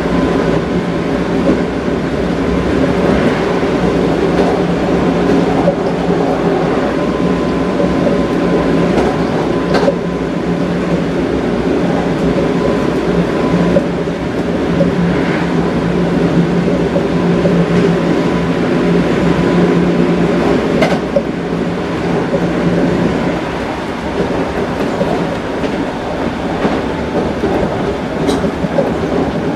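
Toei 5300 series electric train running at speed, heard from inside a passenger car: a steady running rumble with a low hum that fades out about three-quarters of the way through. A few sharp clicks come through it.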